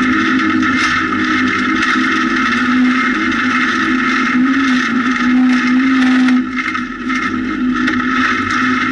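Rally car's engine running hard at high revs, heard from inside the cabin over steady gravel and tyre noise. About six seconds in the engine note drops suddenly, then builds again.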